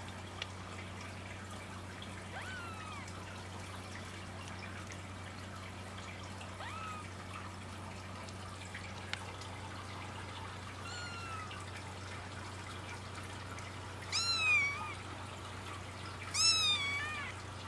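Four-week-old Persian kittens mewing: a few faint, high-pitched mews that fall in pitch, then two louder mews near the end. A steady low hum and hiss lie underneath.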